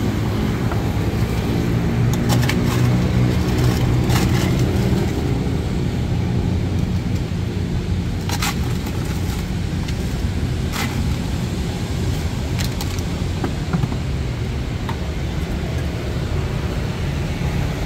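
Steady street-traffic rumble with a motor engine running, more pitched in the first few seconds. Over it come about half a dozen sharp knocks spaced a second or more apart, a knife chopping into a young coconut.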